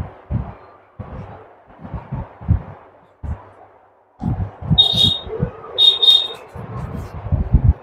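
Muffled low room sounds, irregular knocks and indistinct noise, with short high-pitched electronic beeps twice, about five and six seconds in.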